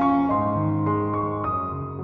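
Background piano music, a slow melody with a new note about three times a second.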